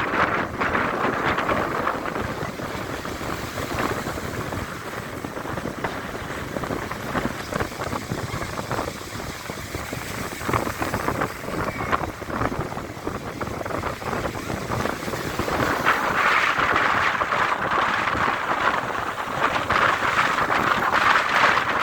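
Rough sea in stormy weather: waves rushing and breaking on the shore, with wind buffeting the microphone. The surf grows louder about two-thirds of the way in.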